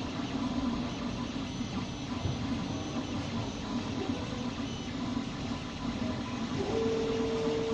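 MINGDA MD-4D dual-extruder FDM 3D printer running mid-print: a steady mechanical whir with a strong low hum, and a short, steady higher whine near the end.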